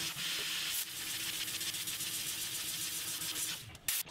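Tormach 440 CNC mill running a ball end mill through aluminum, under the steady hiss of its Fog Buster mist-coolant spray. The sound drops out near the end with a short click.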